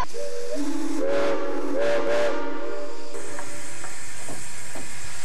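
Steam locomotive whistle blowing one blast of about three seconds, several notes sounding together, over a steady hiss of steam that goes on after the whistle stops.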